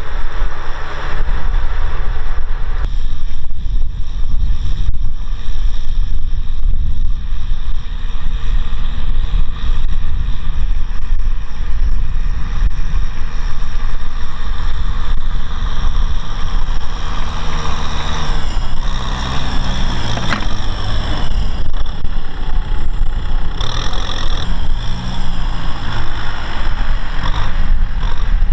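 Farm tractor's diesel engine running under load as it pulls a disc plow through dry, cloddy soil, a continuous heavy rumble. The engine's pitched note comes through more clearly in the second half.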